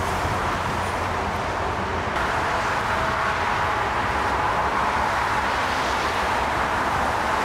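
Airliner jet engines running, a steady rushing roar. After a cut about two seconds in, it is a distant Airbus A380's four turbofans on its takeoff roll, with a faint whine coming in near the end.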